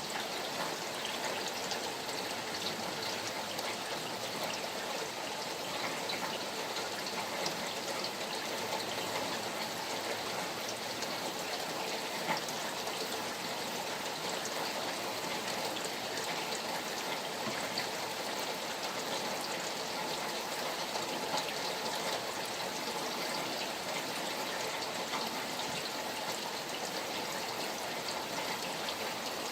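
Steady rain falling by a flowing stream: an even rush of water with scattered drop ticks.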